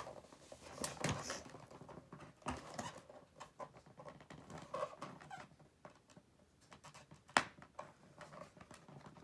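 Toy gun packaging being handled and pulled apart: scattered faint rustles and small clicks, with one sharper click about seven seconds in.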